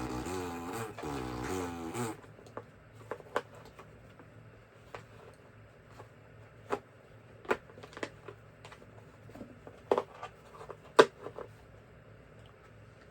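Small hard objects being handled on a table: scattered sharp clicks and knocks, about ten of them, the loudest near the end, as small parts are fitted and put down. A brief wordless vocal sound at the start.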